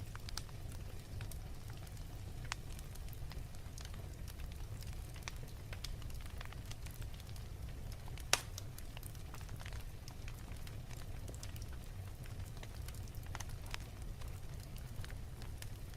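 Fireplace fire crackling: a steady low rumble with scattered crackles and one loud pop about eight seconds in.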